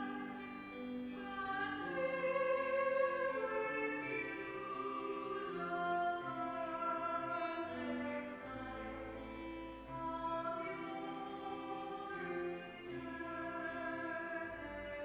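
Offertory hymn at Mass: a classical-style solo voice sings slow, held notes over instrumental accompaniment.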